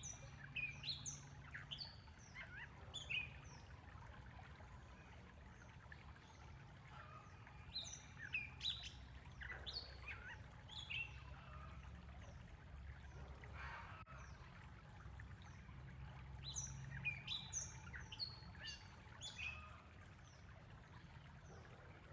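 Small birds chirping in clusters of short, quick calls, about three spells of busy chirping with quieter gaps between, over a faint steady low background rumble.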